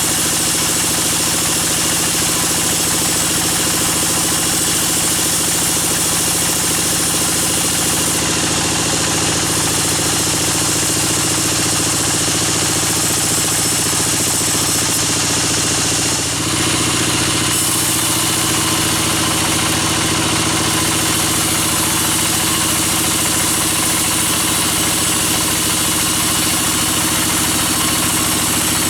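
Sawmill bandsaw machinery running steadily: an engine hum under a constant high hiss, with a brief change in tone about sixteen seconds in.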